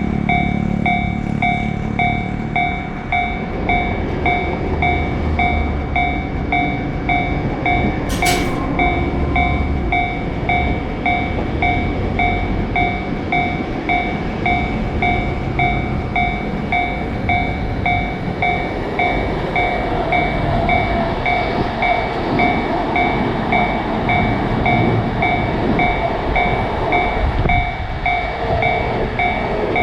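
Level crossing warning bell ringing steadily, about two strokes a second, over the rumble of a passing train.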